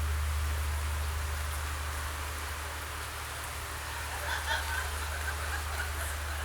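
Steady outdoor hiss over a constant low rumble, with a few faint short calls or distant voices about four seconds in.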